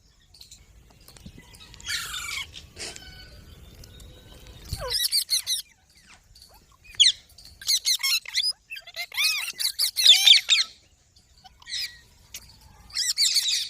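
Green parrot giving a series of harsh, shrill squawks and screeches, short calls coming every second or so with a denser run of them around the middle.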